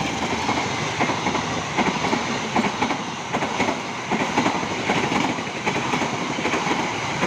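Train running along the track: a steady rumble of rolling wheels with frequent irregular clacks from the wheels over the rails.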